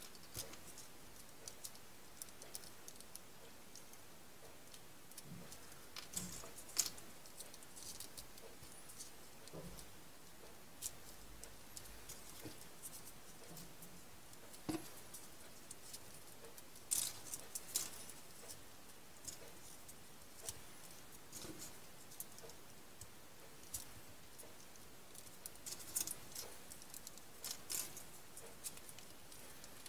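Faint, scattered paper rustles and small clicks as folded triangular paper units are handled and pushed onto a modular 3D origami model, over a steady low hiss.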